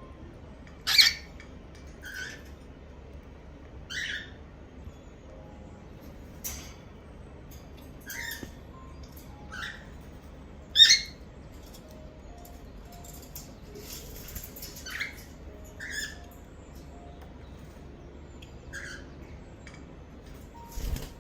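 Cockatiels calling: short chirps repeated every second or two, with two much louder squawks, one about a second in and one about eleven seconds in.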